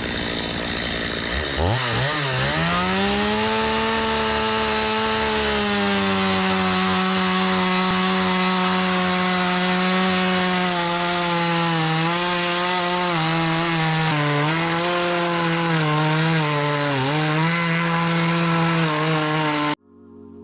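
Two-stroke chainsaw revving up from idle to full throttle about two seconds in, then held at full throttle while ripping lengthwise through a log to mill lumber. Its pitch drops and dips again and again under the load of the cut. The saw cuts off abruptly near the end, and soft keyboard music follows.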